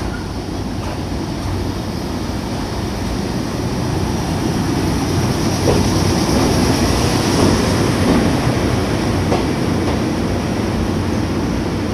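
Electric commuter train running, heard from inside the passenger car: a steady rumble and hiss of wheels on rail that grows louder about four seconds in, with a few faint clicks over rail joints.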